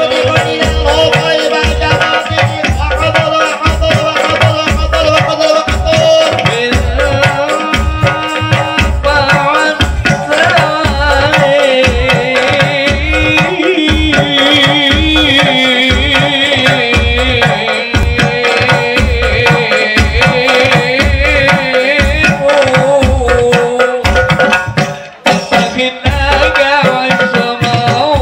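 Men singing into microphones to a steady beat of hand-struck frame drums and jingling tambourines, amplified through loudspeakers.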